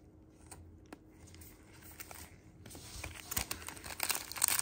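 Trading-card pack wrappers being crinkled and torn open by hand: faint with a few small clicks at first, then crinkling that grows louder in the second half.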